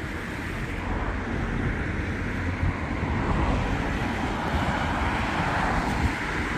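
Road traffic passing close by: a steady rush of tyres and engines that swells a little in the middle and eases off.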